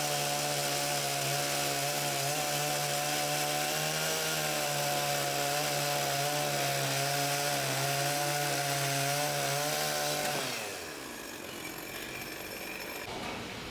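A power saw runs steadily while cutting wood, its pitch dipping and wavering slightly under load. About ten seconds in it is switched off and its motor winds down with a falling pitch.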